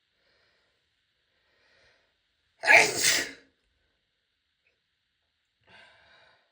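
A woman's single loud sneeze about two and a half seconds in, preceded by two faint inhales. A faint breathy sound follows near the end.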